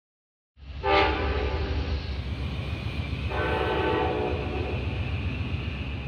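A train horn sounds two blasts of about a second each, each a chord of several tones, over a steady low rumble of the train.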